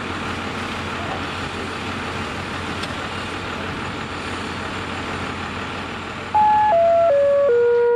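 Steady running of a large truck's engine, idling. About six seconds in, a loud electronic tone cuts in and steps down through four notes, holding the last one.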